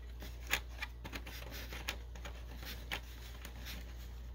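Small plastic accessories being worked out of a plastic packaging tray by hand: light rustling with a few sharp, irregular clicks.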